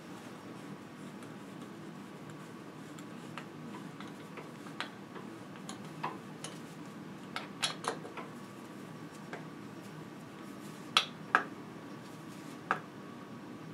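Scattered metallic clicks and clinks of tools on a bicycle crank as the drive-side crank arm is refitted on its square-taper spindle and its bolt tightened, with a few louder sharp clicks near the end.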